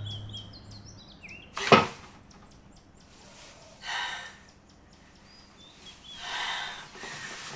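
Small birds chirping in quick falling notes, then a single sharp crack, the loudest sound, about two seconds in. After it a woman lying in bed breathes out heavily twice, sighing.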